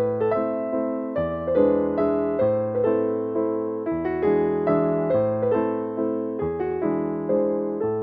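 Background piano music: a gentle keyboard melody of struck notes over held bass notes that change every second or two.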